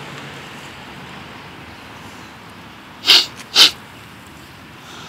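A person taking two sharp, loud breaths through the nose about half a second apart, close to the microphone, as when sniffing at something held to the face.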